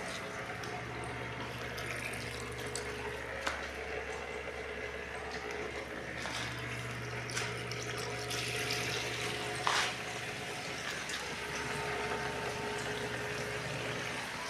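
Homemade parts washer running: a small pump hums steadily while liquid pours and splashes into the basin, with a couple of brief knocks.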